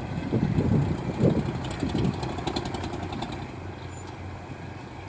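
Engine of a crawler rice-hauling machine running steadily, with louder rough surges in the first two seconds, then settling back to a steady run.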